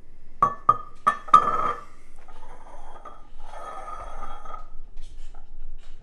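A smartphone on a table sounds an alert tone: four quick, bright notes in the first second and a half, then a longer phrase of the same tone about two seconds later.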